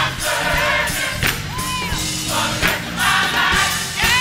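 Live gospel music: a choir singing over a band of keyboards, organ, electric guitar and drums, with strong drum beats about every second and a bit.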